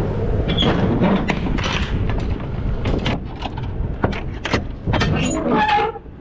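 Semi-truck running with a low steady rumble, over it a string of sharp clicks and rattles, thickest in the second half.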